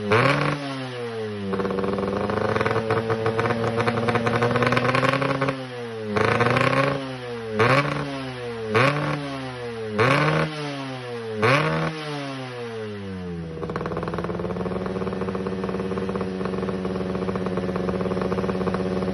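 Yamaha RX-King 135cc two-stroke single-cylinder motorcycle engine, tuned for a deep 'ngorok' (snoring) exhaust note, being revved. It gives a quick rev, holds higher revs for about four seconds, then five quick throttle blips that each rise and fall. In the last five seconds it settles into a steady run.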